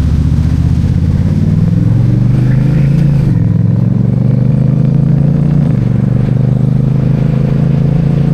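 A vehicle engine running loud and steady, its pitch shifting slightly about three and six seconds in.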